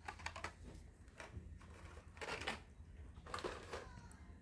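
Faint handling noise of carded Hot Wheels die-cast cars and their cardboard case: scattered soft rustles, taps and knocks, irregular, over a low steady hum.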